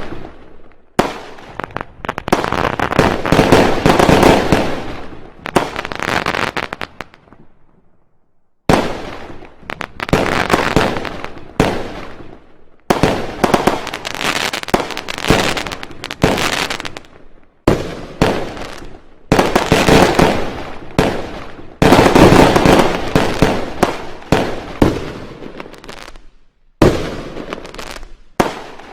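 Fireworks going off: rapid volleys of bangs and crackles in clusters of a few seconds, with short lulls between them, the longest about a quarter of the way in.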